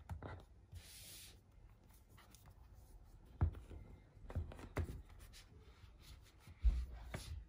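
Soft handling noises of an iPad Pro being lifted and turned over against a folio case: a brief rustle, a few light taps and knocks, and a louder thump near the end.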